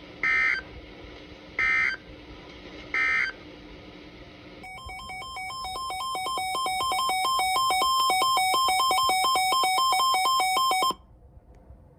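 Three short screeching data bursts of the EAS end-of-message code, about a second and a half apart, marking the end of the alert. From about five seconds in, a buzzy electronic beeping that rapidly alternates between two pitches fades in, then cuts off suddenly.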